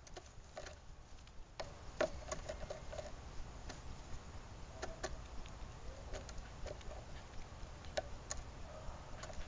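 Blue jays pecking at seeds and nuts on a mesh-floored platform feeder: irregular sharp taps and clicks of beaks, the loudest about two seconds in and again near the end.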